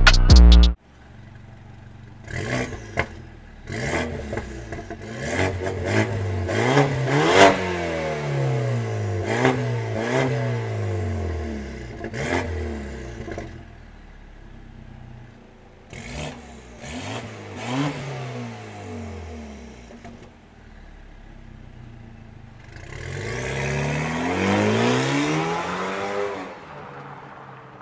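BMW X3 engine revved repeatedly through an exhaust modified with a valve and the resonator removed. It gives short blips that rise and fall in pitch, with sharp cracks at the peaks. Near the end comes one longer rise and fall as the car pulls away.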